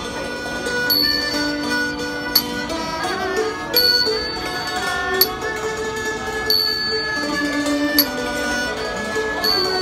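Thai classical ensemble music: a melody of held notes, with a small bright metal percussion stroke about every second and a half that sometimes rings on.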